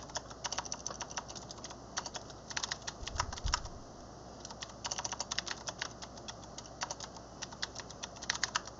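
Computer keyboard typing: quick runs of keystrokes entering shell commands, with a brief pause about four seconds in.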